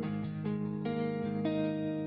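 Background music: a guitar playing sustained notes that change about every half second.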